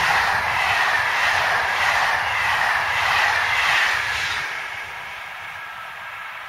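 Passenger train coaches rushing past at speed, their wheels on the rails making a dense rushing noise with a rhythmic clatter and a faint whine that slowly falls in pitch. The noise drops away sharply about four and a half seconds in as the end of the train passes.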